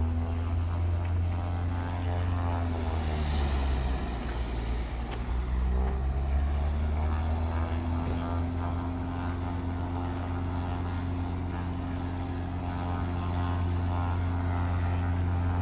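An engine running with a steady low drone; its pitch drops about three seconds in and climbs back by about seven seconds.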